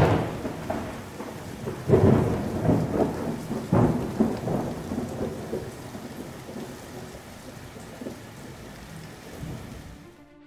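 Thunderstorm: thunder claps and rumbles over heavy rain. A sharp clap comes at the start and two more about two and four seconds in, then the steady rain fades.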